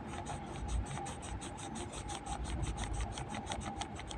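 Wax crayon scratching across paper in quick, repeated back-and-forth strokes as a small patch is coloured in red. The crayon is a Doms wax crayon.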